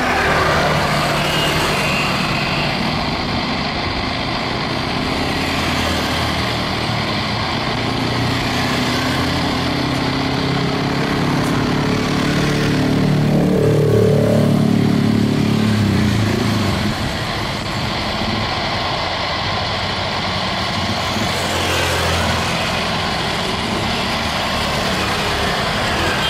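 Steady hum and whine of airliner jet engines at low taxi thrust. It swells about halfway through, with its pitch falling as it passes.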